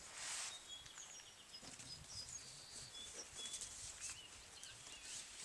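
Faint birdsong: several small birds chirping and whistling in short, high notes, with a brief rustle at the start.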